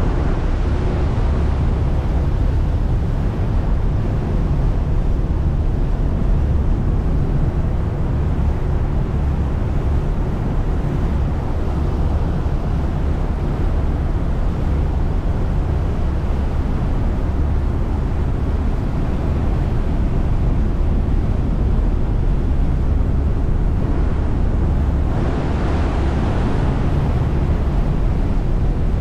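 Steady low rumble of a ferry's engines heard on board, mixed with a wash of wind and water noise that swells briefly about 25 seconds in.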